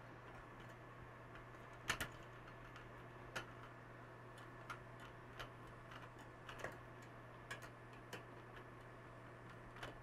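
Faint, irregular light clicks and ticks of a screw being driven by hand with a hand tool into the metal frame of a Monoprice Maker Select V2 3D printer, the loudest click about two seconds in. A steady low hum runs underneath.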